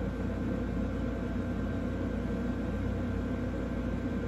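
Steady low background rumble and hum in a room, unchanging throughout, with a few faint steady tones above it.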